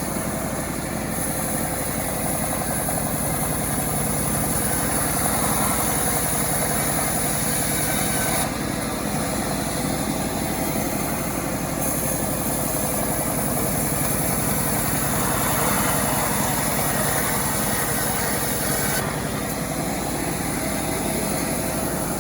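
Homemade self-assembled chainsaw's small engine running continuously, its tone shifting a few times.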